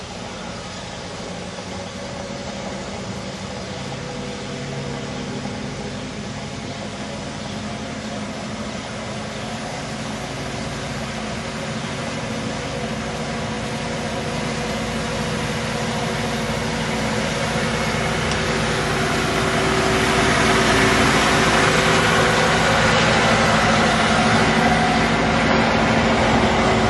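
Diesel locomotive of a 15-inch-gauge miniature railway, hauling a train of coaches towards the listener. Its engine runs steadily and grows louder as it nears, then the coaches rumble past on the track in the last several seconds.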